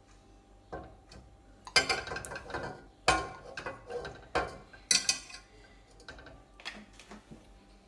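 A metal spoon scraping and clinking against a ceramic bowl in irregular strokes, scraping honey out into a saucepan.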